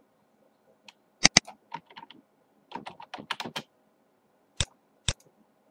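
Computer keyboard keystrokes and clicks in short, irregular bursts, with a sharp pair of clicks about a second in and a quicker run of keystrokes around the middle, as commands are typed into AutoCAD.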